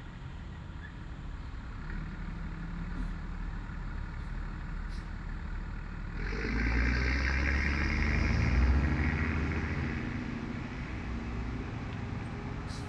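A heavy dump truck drives past on the road. Its engine rumble and tyre noise swell about six seconds in, peak a couple of seconds later and fade, over a steady background of road traffic.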